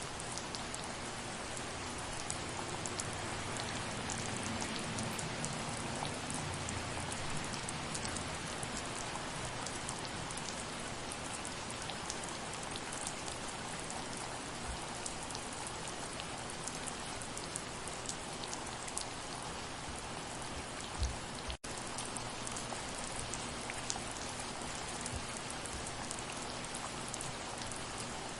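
Steady soft rain, a constant hiss with many individual drops ticking through it. About two-thirds of the way through there is a brief low thump, followed by a split-second dropout in the sound.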